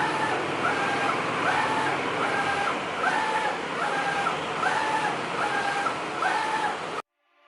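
Flatbed printer running: a motor whine that rises, holds and falls again about every 0.7 s as the print carriage sweeps back and forth, over a steady rushing hiss. The sound cuts off abruptly near the end.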